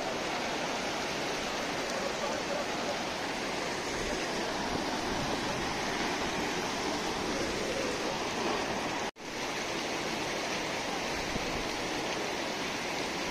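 Fast mountain stream rushing over rocks: a steady, loud rush of white water, cutting out for an instant about nine seconds in.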